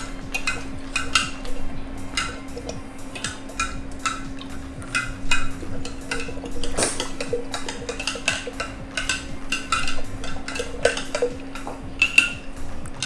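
Metal spoon stirring inside a large glass jar of liquid, clinking irregularly against the glass several times a second.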